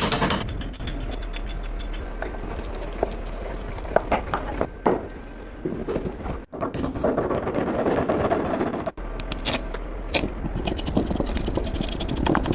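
Metal being worked on a rusty pulley: steady scraping with scattered clicks and knocks, broken twice by abrupt cuts.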